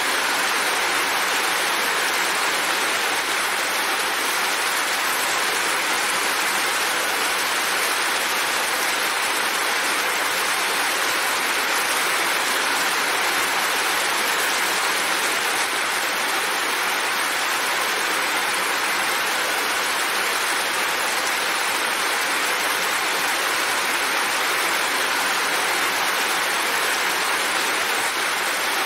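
Steady heavy rain, an even hiss with water streaming off a roof edge.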